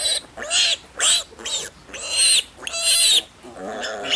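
Male piglet squealing in distress while held on its back and castrated: loud, high-pitched squeals, about six in quick succession, each under half a second long.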